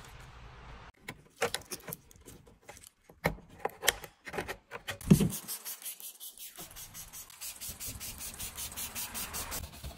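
Sharp, uneven plastic clicks and taps as a screwdriver levers the lock on a car tail light's wiring connector and the plug comes apart, with one louder knock about five seconds in. A fast, even crackling follows.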